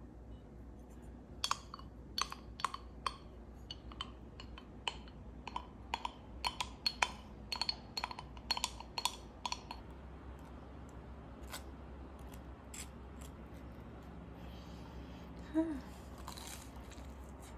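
Wooden spreader scraping and tapping inside a small glass jar, scooping out the last of the strawberry jam: a quick run of small, faintly ringing clinks that stops about ten seconds in.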